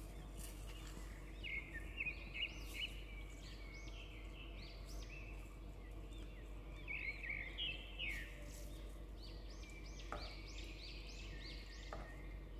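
Silicone spatula scraping and squeaking against the bottom of a nonstick pot while stirring scrambled eggs, in runs of quick squeaks, with two light knocks near the end.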